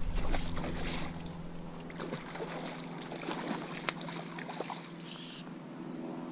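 Wind buffeting the microphone dies away in the first second or so, leaving the small clicks and knocks of a fly rod and line being handled. Short rasping hisses of fly line being stripped in by hand come at the start and again about five seconds in.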